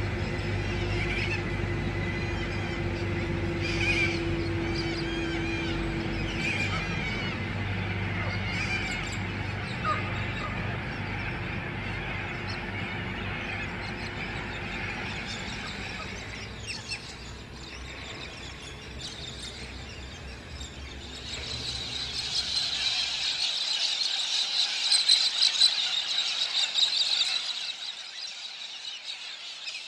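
Low steady hum from a River Murray cable ferry as it crosses, with bird calls over it. About twenty seconds in, a loud, high shrill squeal rises and holds, and soon after the low hum cuts out abruptly.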